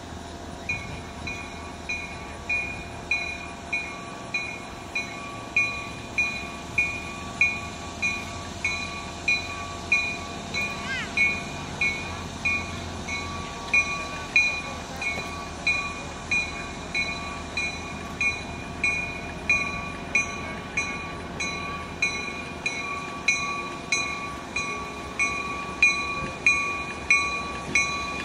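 Locomotive bell ringing steadily, about one and a half strikes a second, on EMD GP30 diesel No. 6944 as it rolls slowly along, with the engine's low running underneath.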